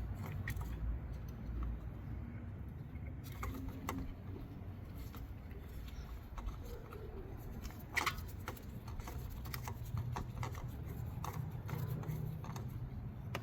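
Faint, scattered clicks and scrapes of hand tools, a wrench and socket being worked on a spark plug to turn it further loose. The sharpest click comes about eight seconds in, followed by a closer run of small clicks.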